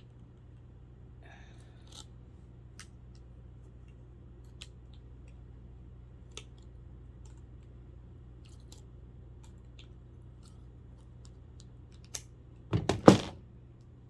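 Scattered small clicks and scrapes from hand-disassembling a plastic clock radio, over a faint steady hum. Near the end comes a short, loud clatter of several knocks.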